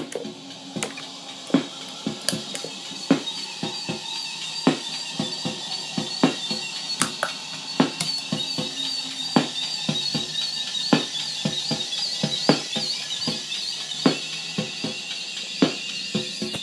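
Noise from guitar effects pedals in a feedback loop, a stereo pedal's spare output fed back into its input through a fuzz pedal: a warbling high-pitched squeal over steady droning tones. Sharp percussive hits of a beat pulse along with it.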